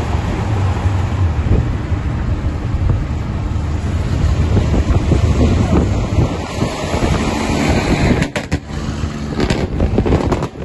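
Heavy truck running at highway speed: a steady, loud low engine rumble mixed with road and wind noise. The sound breaks up with a few short crackles near the end.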